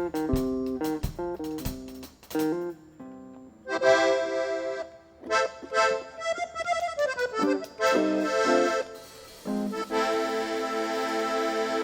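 Accordion playing short chord phrases and runs, ending on a long held chord, with a few drum hits in the first two seconds.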